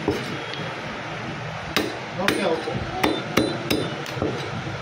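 Meat cleaver chopping bone-in goat meat on a wooden chopping block: a quick run of about six sharp chops starting nearly two seconds in.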